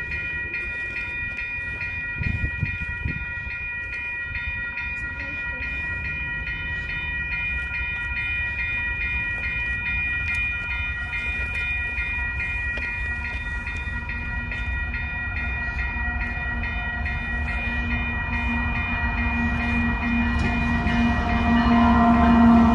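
Level-crossing warning bell ringing steadily. A Canadian Pacific diesel freight locomotive approaches, its rumble and engine note growing louder until it reaches the crossing near the end.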